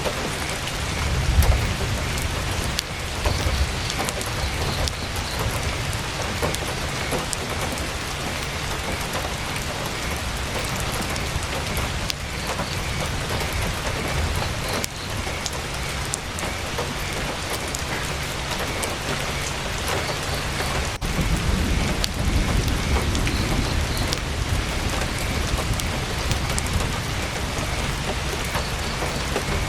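Heavy rain beating steadily on a tent, with scattered sharp crackles of a campfire. A low rumble swells briefly about a second in and again for a few seconds about two-thirds of the way through.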